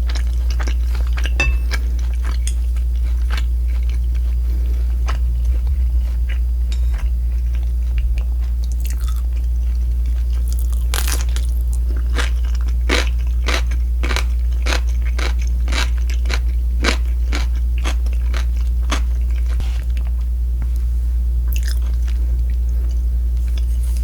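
Close-miked chewing and crunching of crisp fried pork, with a run of rapid crackly bites in the middle, over a steady low hum.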